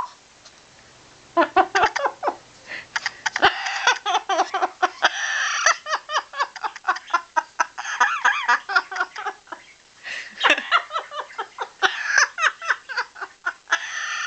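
Yellow-naped Amazon parrot imitating human laughter: long runs of rapid, choppy ha-ha notes, broken by a couple of short pauses.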